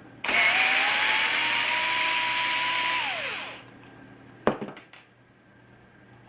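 Small handheld power-tool motor runs for about three seconds, its pitch climbing as it spins up, holding steady, then dropping as it winds down. A single sharp click follows.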